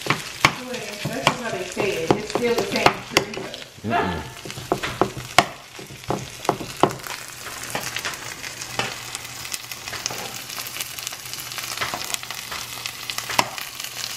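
Chorizo and ground meat sizzling as they fry in two pans, stirred with a metal spoon that clicks and scrapes against the pans.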